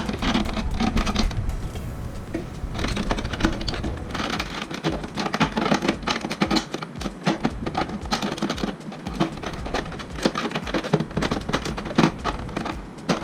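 Plastic side cover of an Epson L360 printer being handled and pressed into place: dense, irregular clicking, tapping and rattling of plastic parts.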